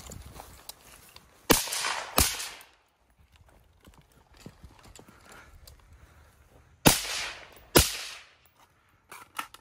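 Rifle shots fired in pairs: two shots less than a second apart, a few seconds of faint footsteps through dry grass, then two more shots, each crack trailing off in a short echo.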